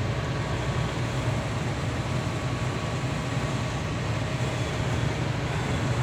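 Heavy truck's engine and road noise heard inside the cab while driving along a highway: a steady low drone with a faint hum above it.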